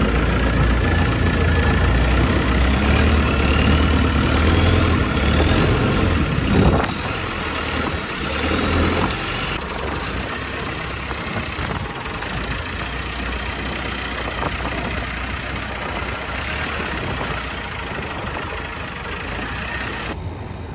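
Long-tail boat engine running under way, with the rush of water and wind. Its note rises over the first few seconds, and the low drone eases off about seven seconds in.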